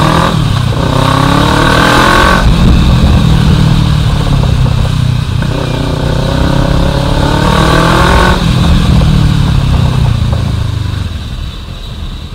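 Kawasaki Versys 650's parallel-twin engine under way, with wind noise. The revs climb twice under acceleration, each climb breaking off sharply, and the engine eases off near the end.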